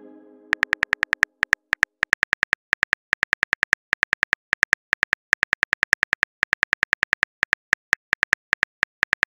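Simulated phone keyboard key-click sounds, a rapid, even run of short taps about six a second as a text message is typed. The tail of a message chime fades out in the first half second.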